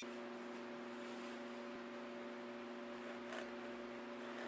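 Steady electrical hum made of a few unchanging tones, with one faint light tick about three seconds in.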